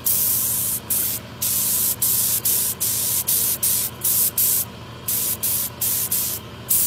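Gravity-feed paint spray gun hissing in repeated short bursts as the trigger is pulled and released, about a dozen quick passes of mineral paint onto a motorcycle gas tank, over a steady low hum.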